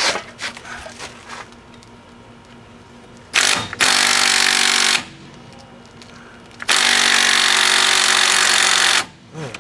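Impact wrench hammering on a rusted wheel-hub mounting bolt in two bursts, the first about a second and a half long and the second about two seconds, with a few light clicks before them. The bolt is stubborn and does not break loose.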